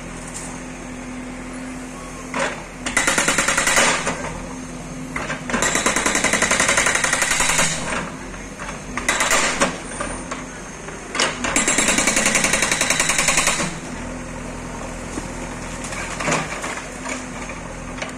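Demolition machinery: the diesel engine of a JCB backhoe loader running steadily, broken four times by loud bursts of rapid, rhythmic hammering lasting one to two seconds each.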